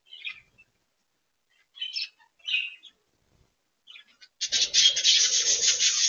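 Budgerigars giving a few short chirps. About four and a half seconds in, a loud scratchy rustle takes over for about a second and a half.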